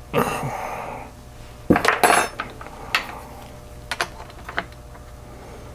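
Small metal tools and test probes clinking and tapping on a workbench: a short rustle at the start, a cluster of sharp metallic clinks about two seconds in, then a few lighter single ticks.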